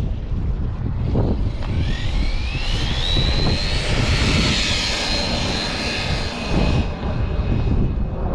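Losi LMT monster truck's brushless motor and drivetrain whining under full throttle on 3S: the whine climbs in pitch as the truck accelerates, holds at top speed, then stops about seven seconds in. Wind rushes on the microphone throughout.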